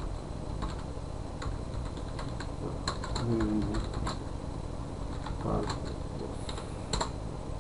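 Typing on a computer keyboard: irregular runs of key clicks, with one sharper click near the end.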